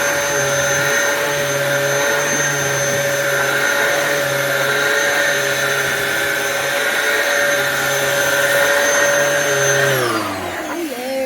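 Dyson DC07 upright vacuum cleaner running with a steady whine. About ten seconds in it is switched off, and its motor whine falls in pitch as it spins down.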